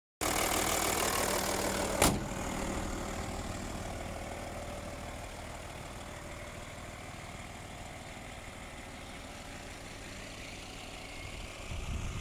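Audi A6 2.5 TDI V6 diesel engine idling steadily. A single sharp bang comes about two seconds in, after which the engine is quieter.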